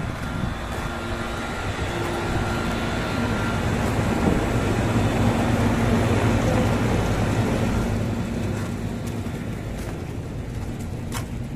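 Rooftop packaged air-conditioning unit running: condenser fans blowing and the compressor humming, steady, with a low drone and a few steady tones. It grows louder toward the middle as the fans come close and eases off near the end. The unit is working again after its high-pressure fault was repaired.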